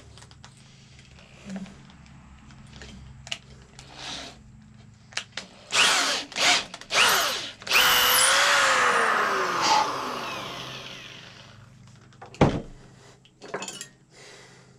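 Old corded electric drill triggered in a few short bursts, then run once longer and left to spin down, its pitch falling as it winds down. A sharp knock follows near the end.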